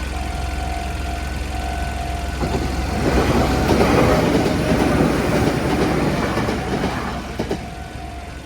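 A train passes over a level crossing, its running noise growing loud about two and a half seconds in and fading about five seconds later, with a few wheel clicks near the end. The crossing's warning bell rings steadily before and after the train, covered while it goes by.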